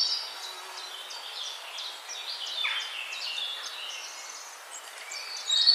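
Birds chirping and twittering in quick short high calls over a steady outdoor hiss, with one falling whistle about halfway through; the calls get louder near the end.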